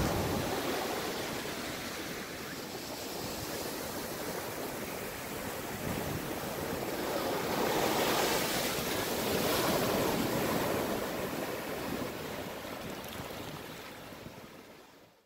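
Ocean waves breaking and washing up over a sandy beach. The wash swells loudest about halfway through, then fades away and cuts off near the end.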